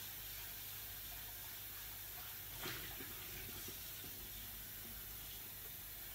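Kitchen tap running at the sink while a saucepan is washed, a faint, steady hiss of water, with one small knock about two and a half seconds in.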